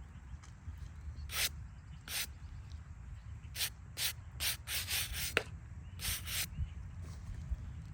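Brush scrubbing a headstone's surface in short, irregular scratchy strokes, with a quick run of several strokes around the middle.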